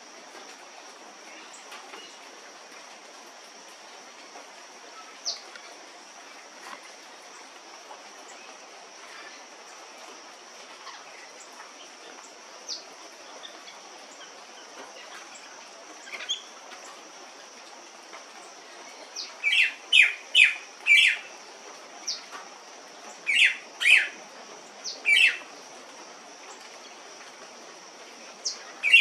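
A bird calling: a run of loud, short, sharp notes, mostly in groups of two or three, starting about twenty seconds in, after a few faint chirps. Under it runs a steady high-pitched hum and a soft hiss.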